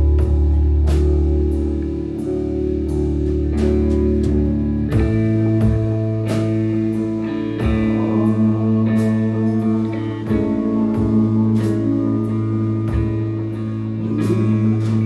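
Live rock band playing: sustained electric guitar chords over bass and drums, with cymbal hits about once a second. The low bass note changes about five seconds in.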